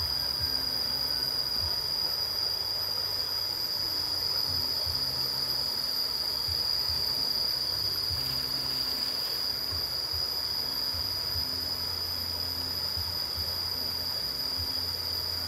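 Steady, unbroken high-pitched drone of insects, with a low, uneven rumble underneath.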